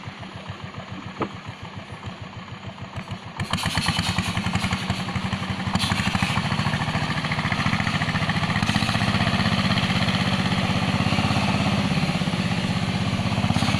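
Kelotok river-boat engine running with a steady pulsing beat, pulling a disabled boat in tow. It runs softly at first, then opens up to a louder, steady run about three and a half seconds in.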